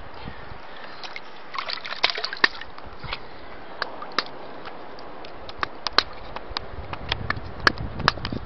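Water sloshing and splashing in a flooded hole on a tidal flat as a wire hook probes it for an octopus, with scattered sharp clicks of the wire and stones scraping and knocking. A low rumble builds near the end.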